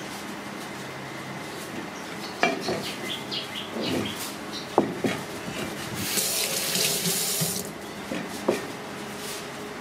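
Kitchen sink tap running for about a second and a half past the middle, between a few sharp knocks and clatters of a knife and plate on the counter.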